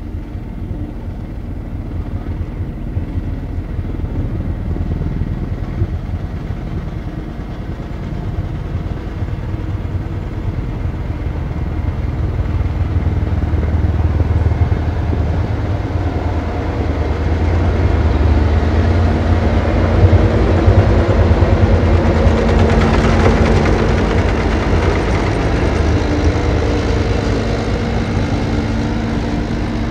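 Tractor engine running steadily, growing louder from about twelve seconds in and loudest around twenty seconds in, with a steady whine joining in about eighteen seconds in.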